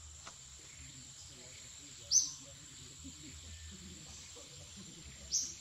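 Forest ambience: a steady high-pitched insect drone over a faint low rumble, broken by two short, sharp, high chirps about three seconds apart, the loudest sounds here.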